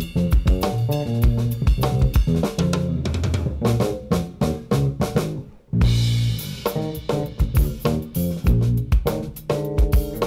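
Five-string electric bass playing a funky line with ghost notes and double stops over a drum and bass backing track with a busy drum kit. About five and a half seconds in, the music briefly drops out, then comes back in at full level.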